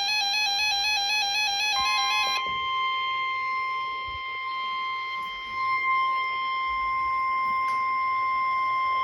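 NOAA Weather Radio alarm test: the warbling digital SAME header burst ends about two seconds in, overlapped by the 1050 Hz warning alarm tone, a steady high-pitched tone that then holds unbroken.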